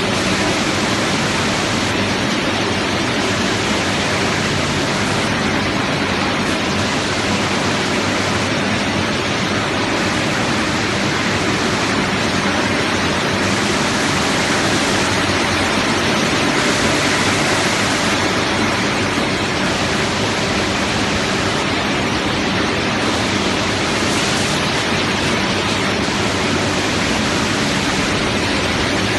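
Steady, even rush of air noise from a quick-freezing tunnel's fans and refrigeration machinery running.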